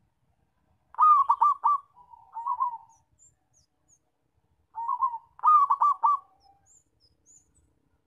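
Zebra dove (perkutut) singing its loud, staccato cooing song twice, about four seconds apart: each phrase is a quick rippling run of notes with a softer, lower coo beside it.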